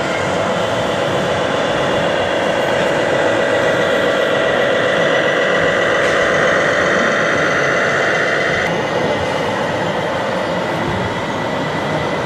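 Radio-controlled scale MAN semi-truck with a curtain-side trailer driving slowly, making a steady mechanical whine. A higher tone in the whine cuts off about nine seconds in.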